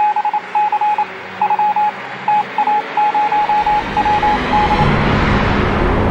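Intro sound effect of Morse-code-style beeps, one steady pitch in short and long groups, over radio static hiss. From about three seconds in a deep rumble swells up, and the beeps stop just before five seconds.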